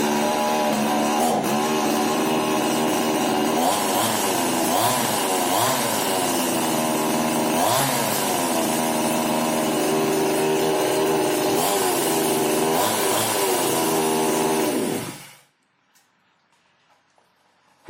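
PIT GCS52D 52 cc two-stroke chainsaw running freshly started, with repeated throttle blips that rise and fall in pitch, starting readily. The sound goes silent about fifteen seconds in.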